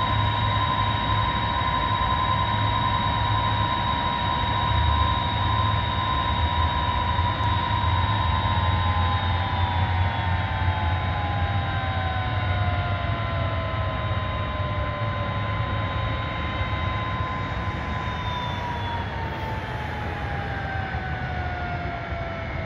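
Boeing 747-300 jet engines running at low power, giving a steady high whine over a low rumble. About a third of the way in, and again near the end, part of the whine slides lower in pitch as an engine winds down.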